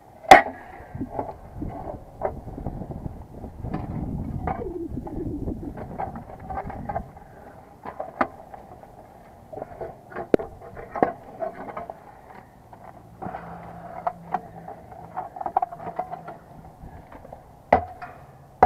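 Steel pry bar striking and levering a rusted metal A/C disconnect box off a brick wall: a sharp metal strike just after the start, a few seconds of rough scraping, then scattered knocks and clinks.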